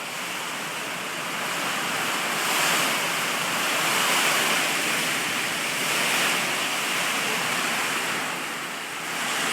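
Heavy hurricane rain and wind: a steady rushing hiss that swells and eases in gusts every second or two.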